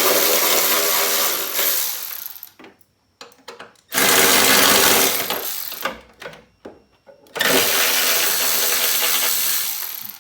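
Power driver running 10mm bolts out of a car's cowl tray: three runs of a couple of seconds each, each tailing off.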